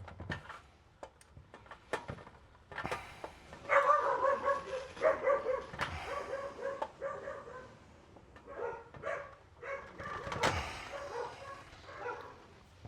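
A dog barking through two long stretches, with a few sharp knocks and clicks in between from the work on the bench.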